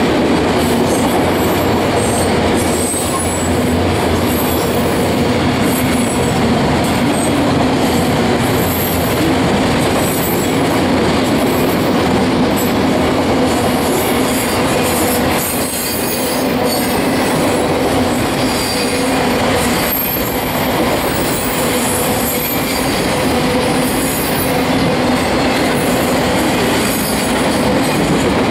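Enclosed autorack freight cars rolling past close by: a steady rumble and rattle of steel wheels on the rail, with brief high-pitched wheel squeals coming and going.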